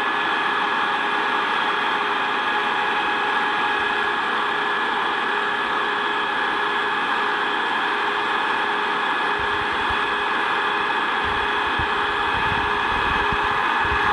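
Combine harvester running steadily at working speed, a constant machine drone with a steady whine over it. Irregular low rumbles join in during the last few seconds.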